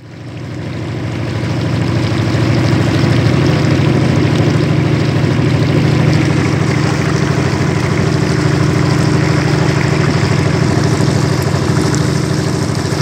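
Motorboat engine running steadily, with water rushing along the hull. It rises in over the first couple of seconds, then holds.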